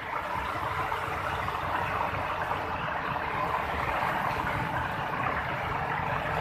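Heavy rain falling steadily, with traffic driving through the flooded road.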